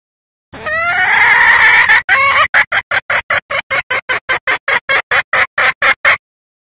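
Female red junglefowl calling: a drawn-out call that rises in pitch, then a fast run of about twenty short clucks, roughly five a second, that breaks off suddenly. It is a hen call that draws cock junglefowl to it and can set them crowing.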